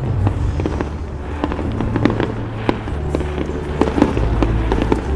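Fireworks exploding in quick succession, a string of sharp bangs and crackles, over music with long held low notes.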